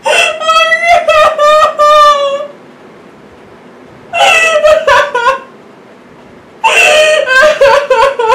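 A woman crying: high-pitched, wavering sobs in three bouts with short pauses between.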